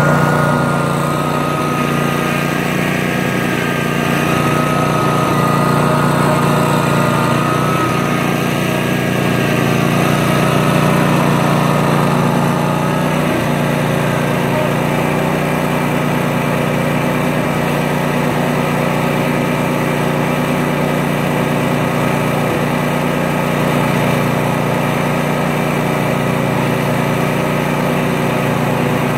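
Cub Cadet zero-turn riding mower's engine running steadily at a constant pitch.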